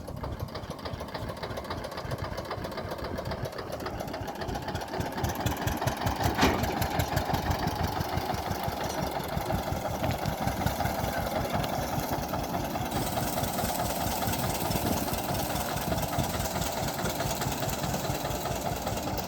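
Diesel tractor engine running with a steady knocking beat. A single sharp knock comes about six seconds in, and a hiss builds up over the engine in the second half.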